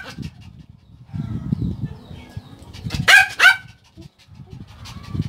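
Yorkshire terrier giving two quick, sharp barks about three seconds in, with low rumbling noise before and after.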